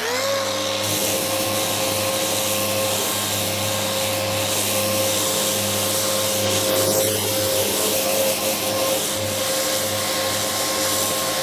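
Festool random orbital sander starting up with a quick rising whine, then running steadily as it sands the epoxy-coated fiberglass deck of a strip-built kayak with a fresh 60-grit disc.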